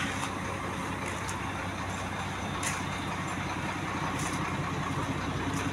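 Steady low hum of an engine running at idle, with a few light clicks.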